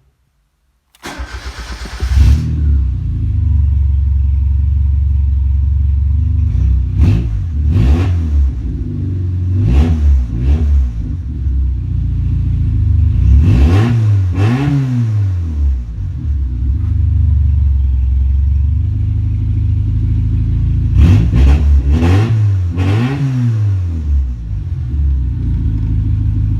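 Car engine cranked and started about a second in, then running loudly at idle with a series of sharp revs, several in quick succession.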